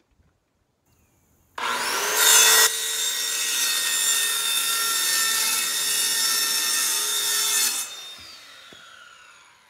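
Corded circular saw starting up about a second and a half in and cutting through a thin ceiling panel sheet for about six seconds, loudest just as the blade enters the sheet. Near the end the trigger is released and the motor winds down with a falling whine.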